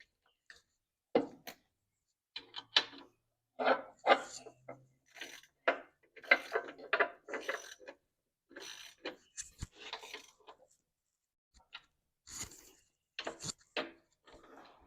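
Irregular clinks, knocks and rattles of metal hand tools being handled and worked on bolts.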